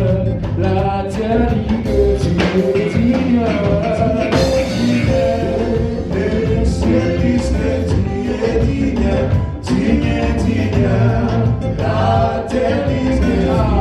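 Live gospel praise music: a band with bass, drums and guitar playing a steady beat under group singing.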